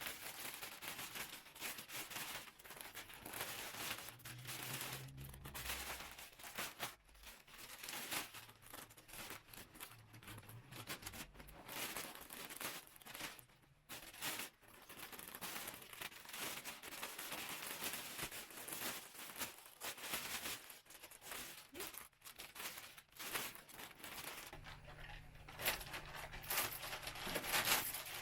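Plastic futon compression bag crinkling and rustling as it is handled, in irregular stop-start bursts.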